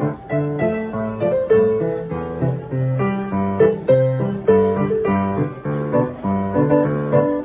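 Solo piano playing an old Taiwanese song: a melody over chords, the notes struck and left to ring at a moderate, steady pace.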